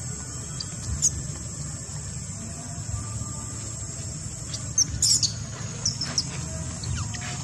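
Steady, high-pitched outdoor insect drone, with a few short, high squeaks about a second in and a cluster of them between about five and seven seconds in.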